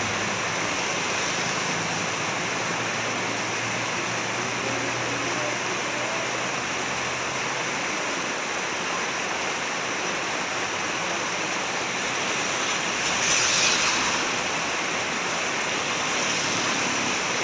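Steady heavy rain, with a brief louder rush about two-thirds of the way through and a low hum that fades out about halfway.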